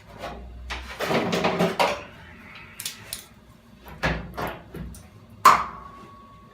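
Metal clanks and knocks as a steel rear quarter panel is clamped onto a classic Mini body shell, with a burst of rattling knocks, then a few more. About five and a half seconds in comes one sharp metallic clank that rings on briefly.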